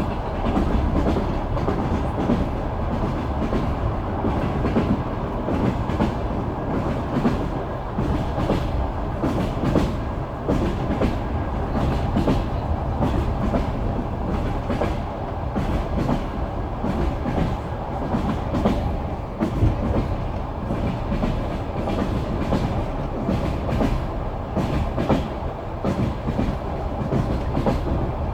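Passenger train carriage heard from inside while running along: a steady rumble with the wheels clattering over the rail joints.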